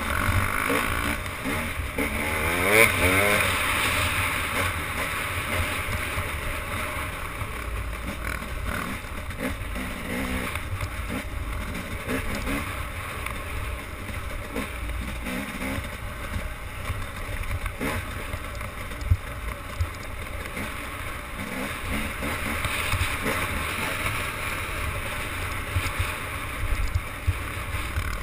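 Wind rumbling on the microphone over the rush of water from a boat moving on the sea.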